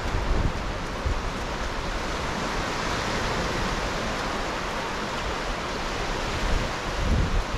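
North Sea surf breaking and washing up a flat sandy beach: a steady hiss of waves. Wind gusts buffet the microphone with a low rumble just at the start and again near the end.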